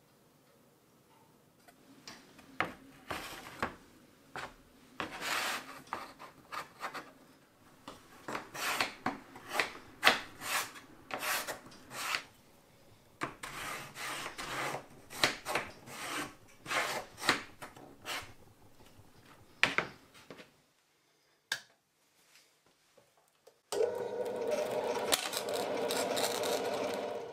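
Felt-tip marker scratching in short strokes as it is traced around a mold-box frame onto hardboard, with brief pauses between strokes. After a short quiet gap with one click, a bandsaw comes in suddenly near the end and runs steadily as hardboard is fed to its blade.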